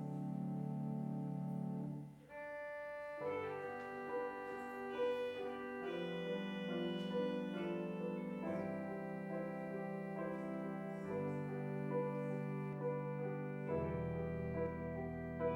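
Keyboard instrumental music: held chords, breaking off briefly about two seconds in, then a new phrase of sustained chords that change every second or two.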